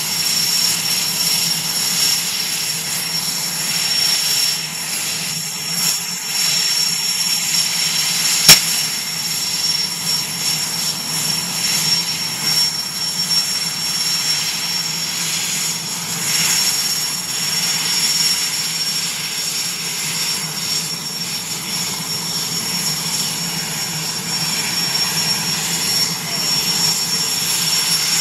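IAR 330 Puma military helicopter running on the ground with its rotor turning before take-off: a steady turbine whine over the rotor and engine noise. A single sharp click about a third of the way in.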